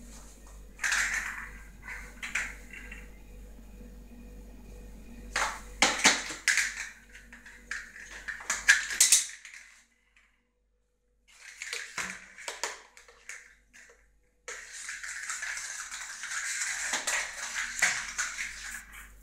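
Maine Coon kittens playing on a tiled floor: bursts of scratching, scrabbling and clicking, with a brief silent break near the middle and a steadier scratchy noise near the end.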